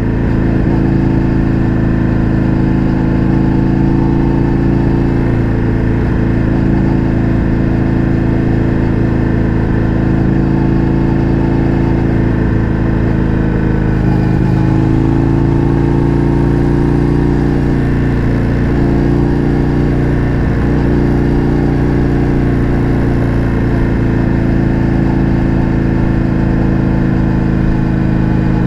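Indian FTR 1200's V-twin engine through an Akrapovič exhaust, pulling at a steady cruise. Its note dips briefly about halfway through, then settles back, with a few small pitch changes later on.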